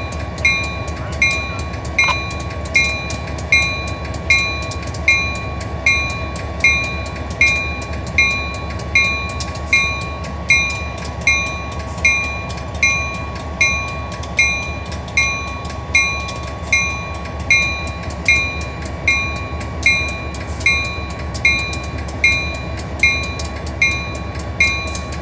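Railroad grade-crossing bell ringing steadily, a little more than once a second, while the train occupies the crossing. Underneath is the low, steady running of an EMD SD40-2 and a GP15-1 diesel locomotive standing nearly still at the crossing.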